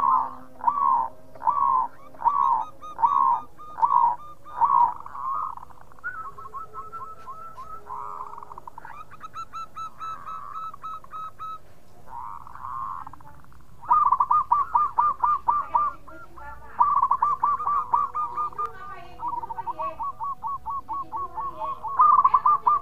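Zebra dove (perkutut) cooing its rhythmic song: repeated rippling coos, about two a second at first, then a quieter stretch and a short lull, then faster, louder runs of notes near the end.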